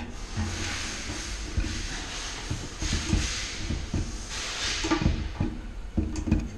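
Irregular knocks, clicks and scraping of plastic parts as the fuel filter assembly is worked back into the car's fuel tank, over a steady hiss.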